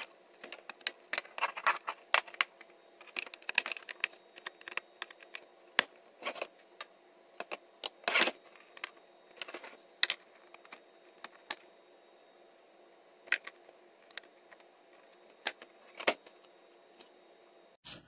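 Irregular small plastic clicks and taps as white wiring-harness connectors are handled and pressed at a refrigerator control board in its plastic housing. The clicks come thick in the first few seconds, then sparser and spaced out.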